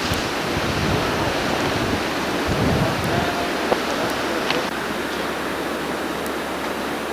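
Steady rushing storm wind, with gusts buffeting the microphone for about the first three seconds before it settles into an even rush.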